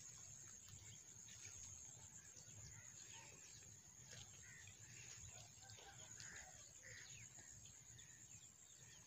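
Near silence: faint outdoor ambience with scattered short bird chirps and a steady high-pitched buzz.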